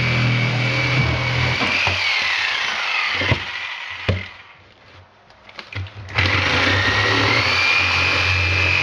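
Corded reciprocating saw cutting a drain hole in a plywood subfloor. Its motor winds down with a falling whine about two seconds in and stops, with a few knocks in the pause. It then starts again and rises back to a steady whine.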